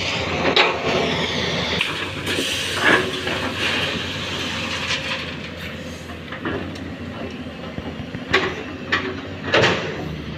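Hyundai 210 excavator loading a Tata Prima tipper truck: diesel engine running steadily, with a few sharp metallic clanks and knocks as the bucket and load strike the tipper body.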